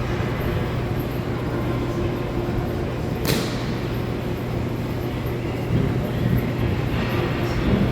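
Steady low hum and rumble of a broomball rink during play, with one sharp crack about three seconds in, like a ball or broom striking the boards.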